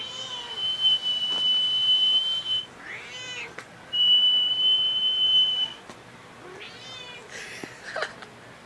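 A man whistling a long, steady high note, then a cat meowing in reply. He whistles the same held note again, and the cat answers with two more meows near the end.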